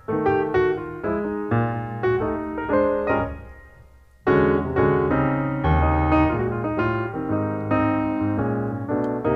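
Background piano music: a run of struck notes that dies away about four seconds in, then starts again.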